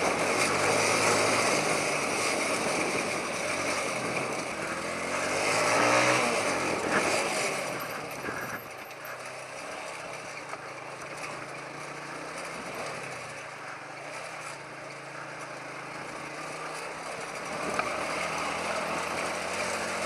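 TVS Apache RTR 180's single-cylinder four-stroke engine under way on a rough dirt trail, over a steady rushing noise. The revs rise about five to seven seconds in, then drop to a quieter, lower steady note from about eight seconds, picking up slightly near the end.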